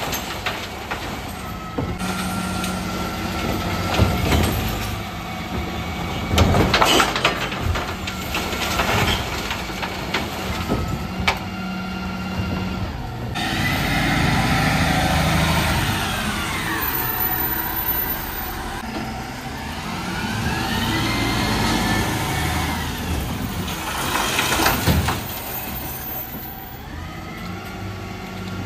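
Dennis Elite 6 refuse truck at work: the bin lifters tip wheelie bins of cans, plastics and glass into the rear over a steady hum, with several sharp clattering knocks. About halfway through the truck drives off, its engine and drivetrain whining in a pitch that rises and falls as it moves.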